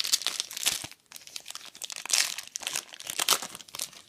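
Trading card pack wrapper crinkling and being torn open by hand, in three busy spells of crackling with a short pause about a second in.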